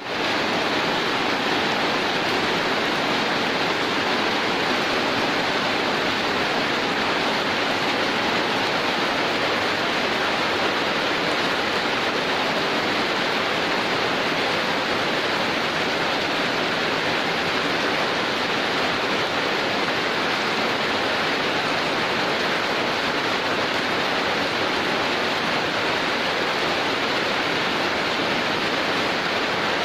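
Heavy rain pouring down, a dense, steady hiss with no thunder or other breaks.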